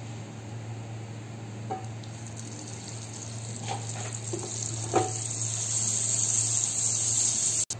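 Butter sizzling as it melts on a hot tawa (flat griddle). The hiss builds from a couple of seconds in, with a few light taps along the way, and cuts off suddenly near the end.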